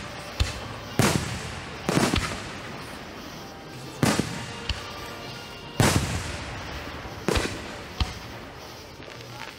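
Aerial fireworks shells bursting: about seven sharp booms, irregularly spaced one to two seconds apart, each followed by a long echoing rumble that dies away.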